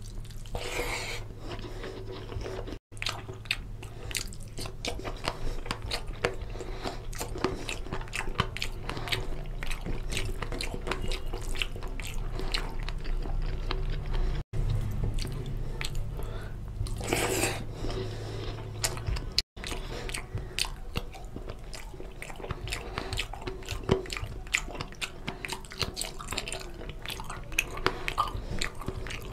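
Close-miked chewing and wet mouth sounds of a person eating rice and oily goat curry by hand, with dense small clicks and smacks throughout, mixed with the squish of fingers working rice into curry on a steel plate. The sound cuts out briefly three times.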